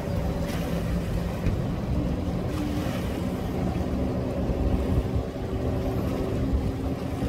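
An engine idling steadily, with wind noise on the microphone.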